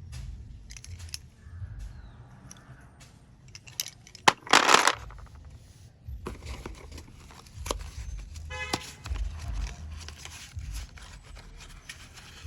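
Slate pencil packaging being handled, with scattered light clicks and rustles. A loud rustling, tearing burst comes about four and a half seconds in, and a quick run of small clicks comes near nine seconds.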